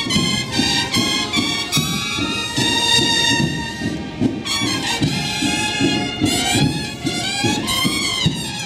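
Uniformed marching band's brass section, trumpets leading, playing a processional tune without a break.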